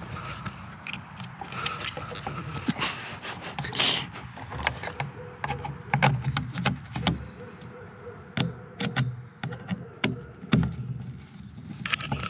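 A hand screwdriver driving screws into a plastic RVLock battery-pack housing on the underside of a cargo door: scattered clicks, creaks and knocks of the screw and tool against the plastic, with a short louder burst of noise about four seconds in.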